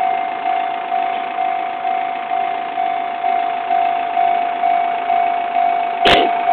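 Japanese railway level-crossing warning bell ringing on and on, a steady ding-ding at about two strikes a second, each strike fading before the next. It signals that the crossing is closed for passing trains. A single sharp knock sounds about six seconds in.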